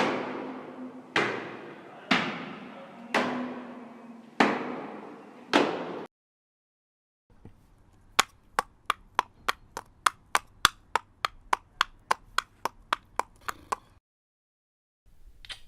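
Foley sound effects: six heavy strikes, each ringing away over about a second, then after a pause a fast run of sharp clicks, a little over three a second.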